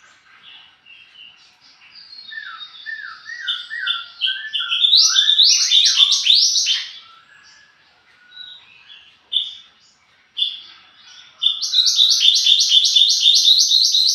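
A mantenan gunung songbird singing varied whistled phrases. They build into a loud run of rapidly repeated notes about five seconds in, and into a second run near the end.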